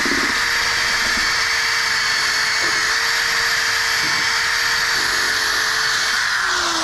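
Electric drill spinning a wire brush against the rusty steel of a mower deck, scouring off rust: a steady motor whine over a scratchy brushing noise. About six seconds in the whine falls in pitch as the drill winds down.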